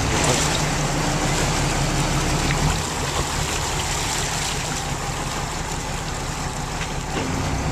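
Boat engine running with a low, steady hum under a continuous rush of water and wind as the boat moves through the sea.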